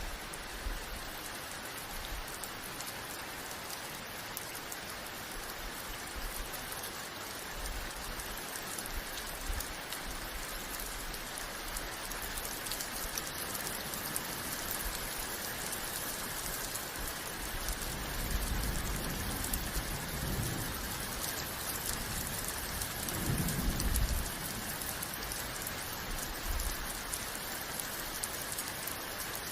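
Steady heavy rain pattering on surfaces. Past the middle there are two low rumbles, the second one louder.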